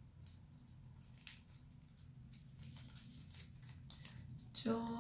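Faint rustling and light crinkling clicks of folded origami paper as a paper crane's wings are pulled open by hand. Near the end a steady held tone starts.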